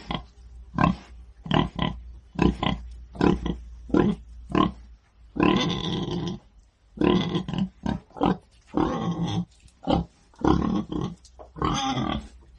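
Pig grunting repeatedly in short grunts, some in quick pairs, broken by several longer, rasping squeals about a second long.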